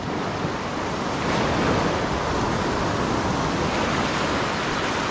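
Ocean surf breaking and washing up the shore: a steady rush of water that swells a little about a second in.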